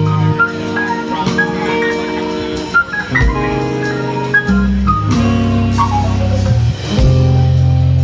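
Live band music: a stage keyboard plays held chords and a melody of short notes over low bass notes and a drum kit.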